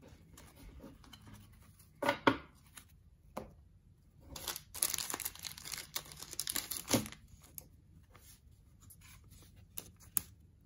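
Wrapper of a 1990 Fleer baseball card pack being torn open and crinkled: two short sharp rips about two seconds in, then a longer stretch of tearing and crinkling that ends in a sharp snap about seven seconds in.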